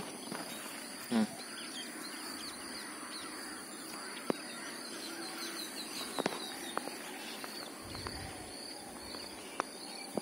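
Birds chirping repeatedly, over a steady high-pitched buzz, with one brief louder call about a second in. A few light clicks and ticks are scattered through.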